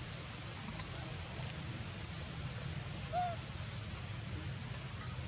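Steady outdoor background noise with a low rumble and a thin, steady high whine. About three seconds in, a single short call rises and falls in pitch.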